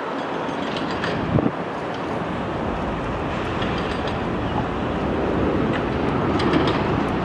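Steady rumbling roar of airliner jet engines, swelling a little toward the end, with a few faint clicks.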